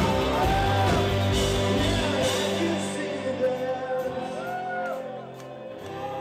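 Live band music with a singer: the full band with drums and bass plays for about two seconds, then the low end drops away and the singing carries on over a quieter backing.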